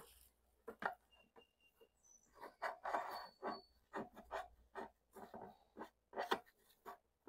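Gloved hands working irrigation cable into a plastic sprinkler-timer housing: a string of faint, irregular scrapes, rubs and small knocks of cable against plastic.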